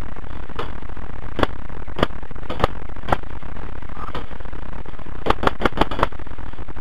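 Paintball marker shots: sharp single pops about every half second, then a quick string of five near the end, over a steady electrical buzz from the helmet-cam microphone.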